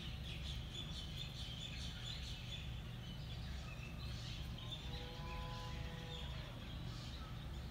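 Outdoor ambience: small birds chirping and twittering throughout over a steady low rumble, with one held pitched tone lasting about a second near the five-second mark.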